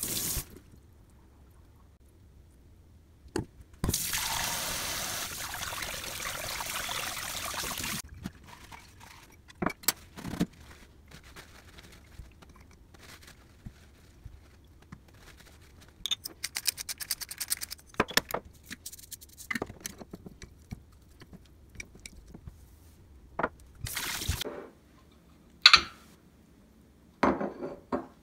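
Tap water running for about four seconds, then the crinkling and rustling of a paper towel being handled, with scattered light clinks and taps of stainless steel bowls and a strainer.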